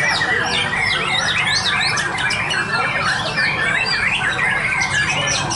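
Many caged white-rumped shamas singing at once: a dense, overlapping chorus of quick whistles and trills that never pauses, over a steady low hum.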